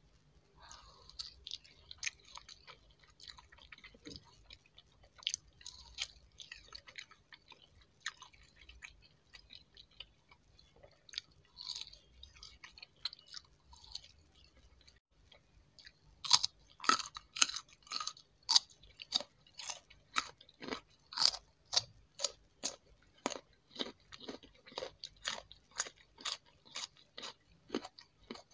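Close-miked chewing of crisp raw fruit: soft, irregular wet chewing of a bitten pear at first, then, from about halfway, loud steady crunching at roughly two chews a second.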